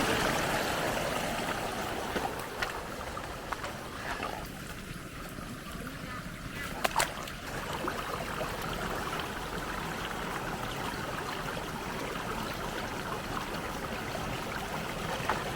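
Water running steadily out of a rice field into a channel, with a few faint clicks. It is louder at first and settles after a couple of seconds.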